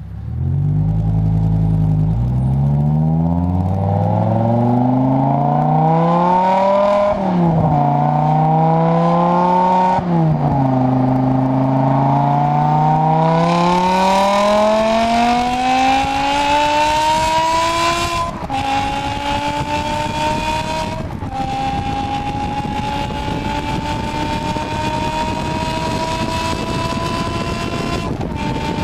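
BMW M6 engine and exhaust, running through 100-cell race-cat headers with the secondary cats deleted and stock resonators and mufflers. The revs climb and drop several times, then rise in one long steady pull, broken near the end by three brief cuts like gear shifts.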